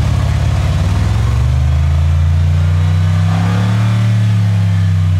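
A car engine held at high revs, just under 4,500 rpm, steady and loud, for a stationary exhaust-noise measurement. The car's exhaust had already read a couple of decibels over its registered standing-noise limit.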